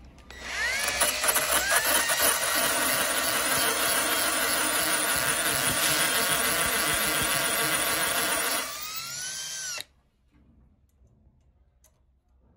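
Electric impact drill spinning up, running loud and steady for about eight seconds, then easing off and winding down before stopping abruptly.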